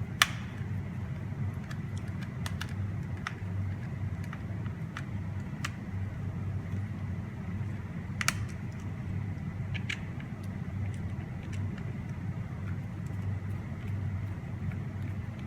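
Wahl hair clipper running with a steady hum, its annoying rattle gone now that the knocked-out blade sits back in its holder. A few light clicks, one sharp click at the very start.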